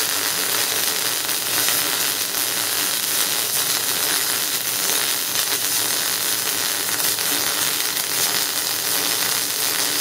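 MIG welding arc with solid wire under CO2 shielding gas, laying a bead on 4 mm steel plate. It makes a steady, dense crackle as the wire short-circuits rapidly on the steel.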